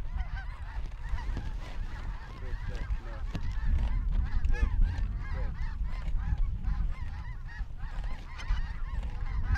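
A large flock of snow geese calling overhead: a dense chorus of many overlapping high, short honks. A low rumble of wind on the microphone lies underneath.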